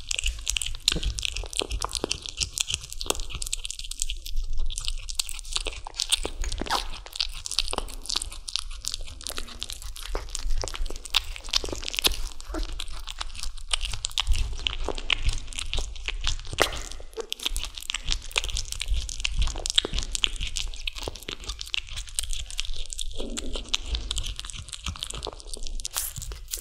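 Kitten chewing and gnawing on a raw chicken drumstick, picked up close: a continuous stream of small wet, crunchy clicks and bites.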